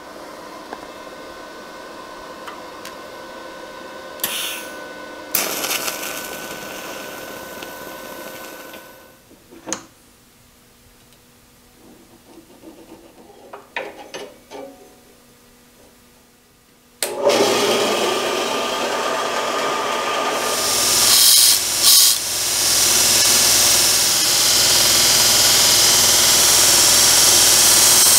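A steady electric welding-arc buzz with a louder stretch near the middle of it, then a quiet spell of small handling clicks. About 17 seconds in a machine starts suddenly, and from about 20 seconds a belt grinder runs louder, grinding a small metal part held to the belt.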